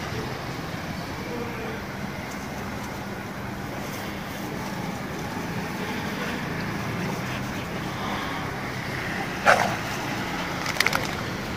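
Steady road traffic noise with a low engine hum, and one short loud cry about nine and a half seconds in, followed by a few quick clicks a second later.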